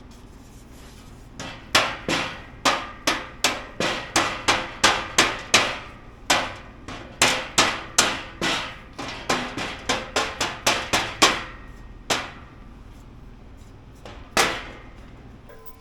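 Hammer blows on a metal filler plate, knocking a too-tight piece into place: a run of about thirty quick strikes, roughly three a second, then two single blows near the end.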